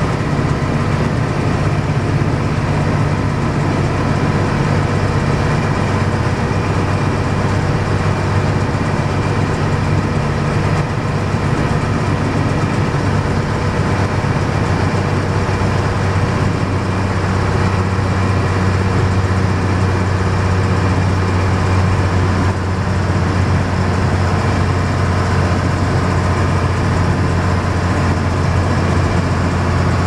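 AEC RT double-decker bus's six-cylinder diesel engine running steadily under way at road speed, with road noise; the engine note shifts slightly about halfway through.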